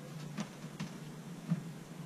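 A few faint clicks and taps from small parts being handled, three in all, over a steady low hum.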